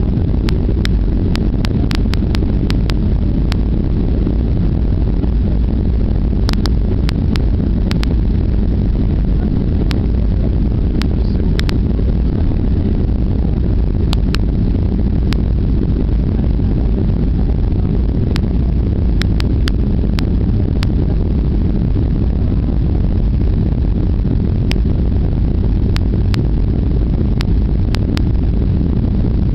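Boeing 757-300 cabin noise heard from the rear row on final approach: a steady low rumble of engines and airflow, with flaps extended. Scattered brief clicks come through over it.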